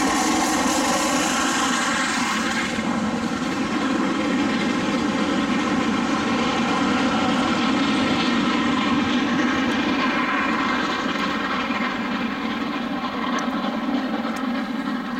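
LMS Royal Scot class steam locomotive 46115 'Scots Guardsman' working hard, its exhaust a steady roar as it hauls the train past and away, fading gradually near the end.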